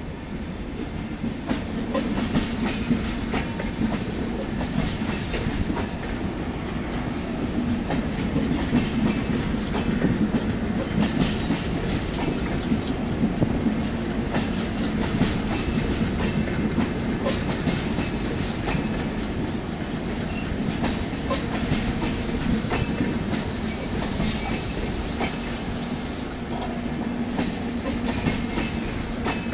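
Tejas Rajdhani's LHB passenger coaches rolling past, wheels clicking steadily over the rail joints above a continuous low rumble.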